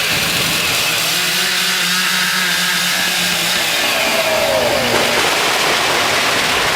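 Chainsaw running hard and cutting, steady and loud, with a pitch that drops about four seconds in.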